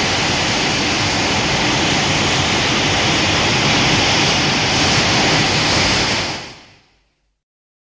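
Godzilla's atomic breath sound effect: a loud, sustained rushing blast, like a jet, that holds steady for about six seconds and then fades away.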